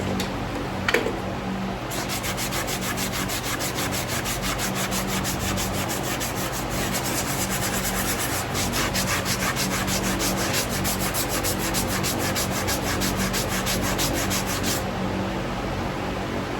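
Farrier's hoof rasp dressing the outer wall of a freshly shod hoof, taking the wall flush with the shoe: quick, even rasping strokes that start about two seconds in and stop shortly before the end. A single sharp knock sounds about a second in.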